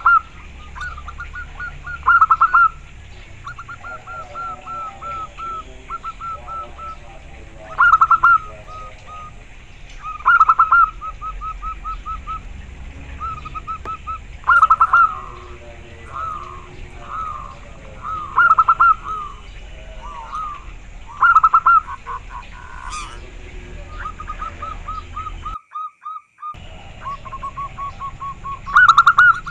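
Zebra dove (perkutut) singing: rapid runs of short cooing notes, with a louder phrase every two to four seconds and softer runs between them.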